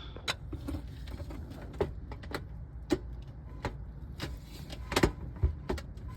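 Irregular sharp clicks and knocks of metal tools and parts as a CV axle is worked out of a Honda Civic's transmission, with the loudest knock about five seconds in.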